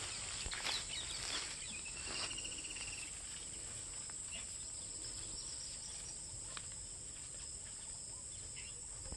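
A steady, high-pitched chorus of insects, with footsteps through dry grass during the first couple of seconds and a short trill about two seconds in.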